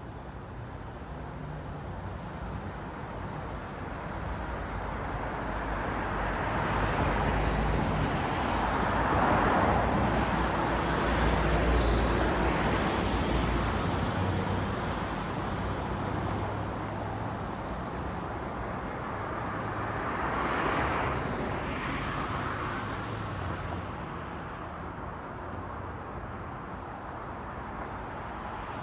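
City road traffic at night: a steady rush of tyres and engines, swelling as vehicles pass, loudest with a deep rumble about a third of the way in and again about two-thirds through, then easing off.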